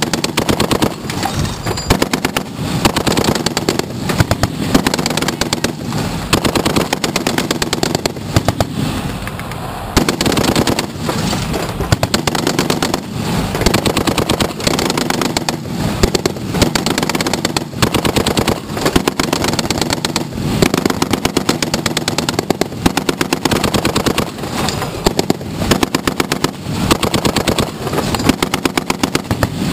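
M2 .50-calibre heavy machine gun, belt-fed on a vehicle turret mount, firing repeated bursts of heavy shots with short pauses between them, one brief lull about ten seconds in.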